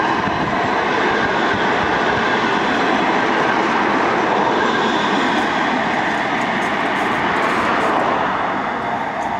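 Two coupled Manchester Metrolink M5000 trams passing at close range, their wheels rumbling steadily on the rails. The sound drops off near the end as the trams draw away.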